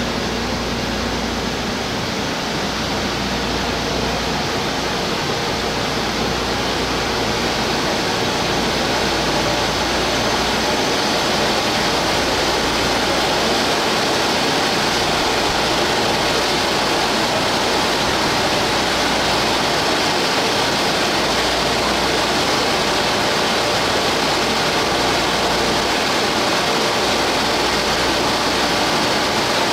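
Steady rushing hum of a stationary 413-series electric train's onboard auxiliary equipment, heard close beside the car. It starts abruptly and then holds even, with no rhythm or change.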